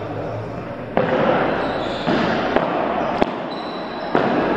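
Padel ball being hit back and forth: a few sharp knocks of ball on racket, floor and walls, roughly a second apart, over rough background noise.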